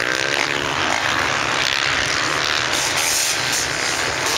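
Motocross dirt bike engines running and revving hard, one engine's pitch wavering up and down about a second in.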